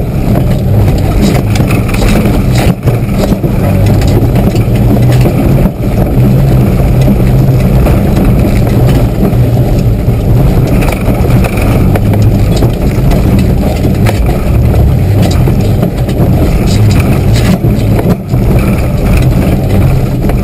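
Mitsubishi 4x4's engine working hard without a break, very loud and heavy in the low end, heard from inside the cab while it is driven over rough off-road ground.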